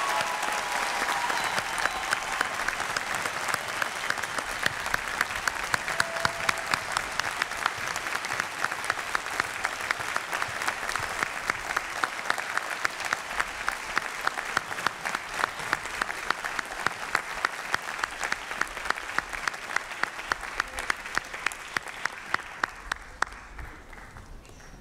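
Audience applauding graduates, a dense sustained clapping with a steady beat of sharp claps, about three a second, running through it; it dies away near the end.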